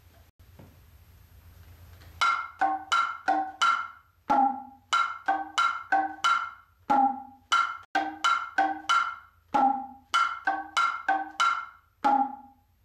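Kotsuzumi (small Japanese shoulder drum) struck by hand in a rhythmic pattern of about two to three ringing strokes a second. The pitch and tone shift from stroke to stroke. The strokes begin about two seconds in and stop near the end.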